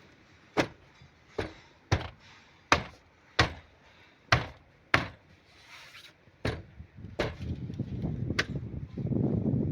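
A series of sharp knocks, about one every 0.7 s, followed near the end by a louder low rumbling noise.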